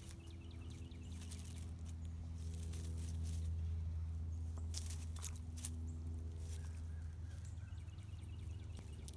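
A steady low hum, with brief scuffling and rustling as a piglet nudges and pushes against a dog on dirt and dry leaves, busiest in the middle.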